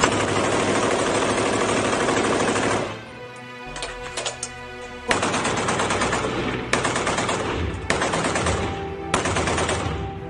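Rapid automatic gunfire in long sustained bursts. It breaks off about three seconds in and resumes about two seconds later.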